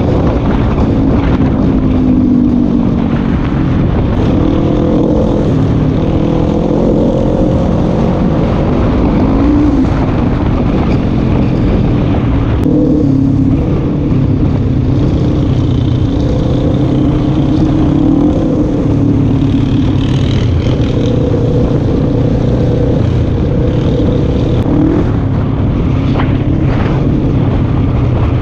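Quad bike's engine running while ridden, its pitch rising and falling gently with the throttle.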